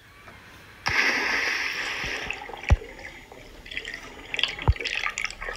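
A sudden splash of water about a second in, then bubbling and dripping with two deep plops, one in the middle and one near the end.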